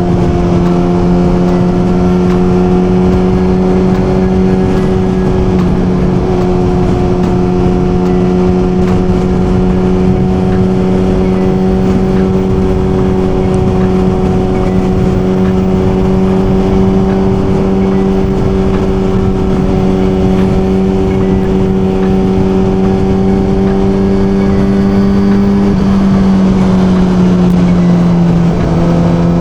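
Suzuki GSX-R1000 inline-four engine running at a steady high cruising speed, with road and wind noise underneath. The engine note dips briefly near the end as the throttle eases off, then settles back.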